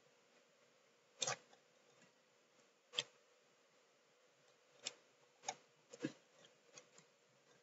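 Faint, scattered clicks of computer controls against quiet background hiss and a faint steady hum. There are single sharp clicks about one, three and five seconds in, then a quicker run of clicks near the end.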